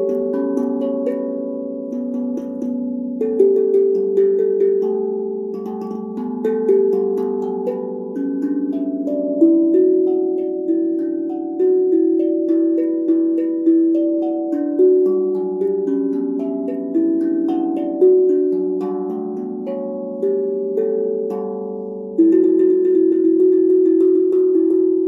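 BeatRise 13-inch, 15-note steel tongue drum played with mallets, its bottom plug out: a made-up melody of struck notes, each ringing on and overlapping the next. Near the end it moves into a quick run of rapid repeated strokes.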